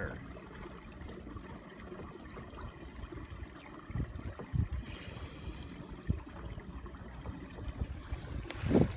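River water trickling and rushing around a kayak in a fast current, over a steady low rumble. A few dull knocks come about four seconds in and near the end, and a short hiss comes about five seconds in.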